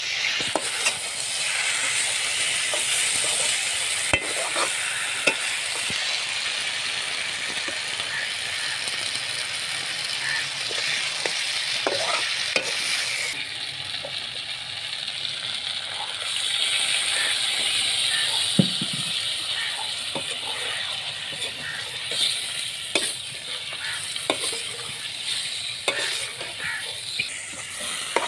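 Potato slices sizzling in hot oil in a steel pan, a steady hiss, with a metal slotted spatula scraping and clicking against the pan now and then as they are stirred.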